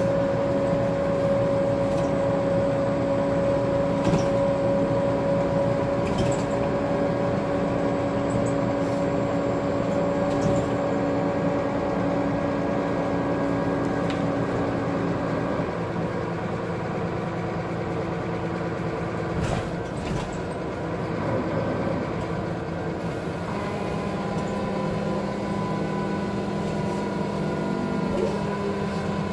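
Scania single-decker bus with a Wright Solar body heard from inside the passenger saloon while running: steady engine and drivetrain noise with a whining tone whose pitch shifts a couple of times, and a few short knocks and rattles from the bodywork.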